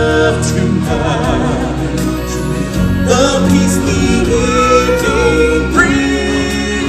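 Live stage-show music: singers holding long notes with vibrato over sustained instrumental accompaniment.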